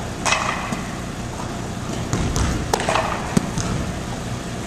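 Volleyball being passed and set back and forth: several sharp slaps of the ball off hands and forearms, echoing in a gymnasium.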